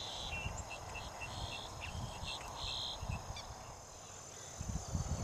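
Marsh wildlife calling: three short, flat, high buzzy notes about a second and a quarter apart, with quick little chirps between them that fade out after about three seconds. Low rumbles come and go underneath.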